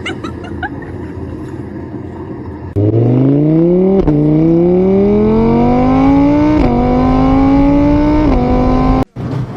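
Rumbling noise, then a car engine suddenly accelerating hard, its pitch climbing and dropping back at each of three gear changes. It cuts off abruptly near the end.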